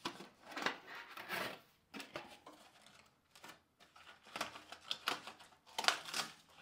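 Cardboard packing inserts being worked loose and pulled out of a 3D printer's enclosure: irregular scraping and rustling of cardboard, in short strokes with brief gaps, loudest near the end.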